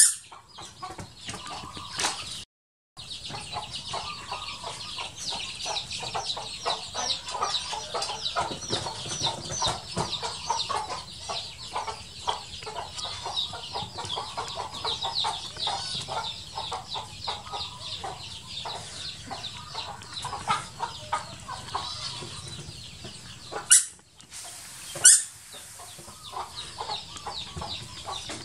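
Chickens clucking and chirping steadily in the background, a dense run of short calls throughout. Two short, sharp, loud sounds come about a second apart near the end, and the sound cuts out briefly near the start.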